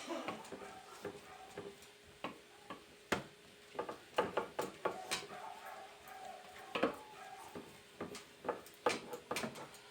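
Irregular light knocks and clicks of kitchen work by hand on a counter: dough and utensils being handled, with a faint steady hum underneath.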